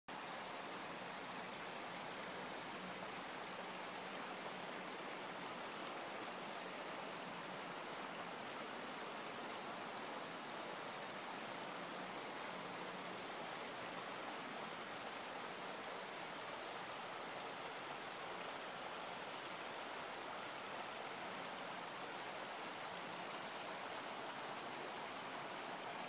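Small woodland creek running over rocks, a steady rushing of water.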